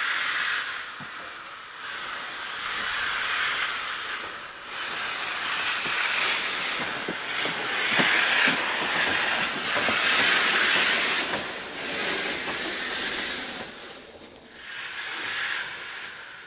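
Robert Stephenson & Hawthorns Austerity 0-6-0 saddle tank locomotive moving slowly with its cylinder drain cocks open, steam hissing out in surges that swell and fade every couple of seconds.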